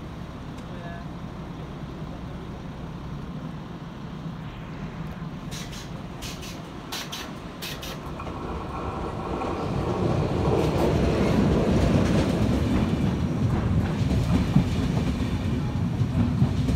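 ČD class 362 electric locomotive and its InterJet coaches rolling past on arrival: a rail rumble that builds from about eight seconds in as the locomotive draws near and stays loud as the coaches pass. A cluster of short high clicks comes before it.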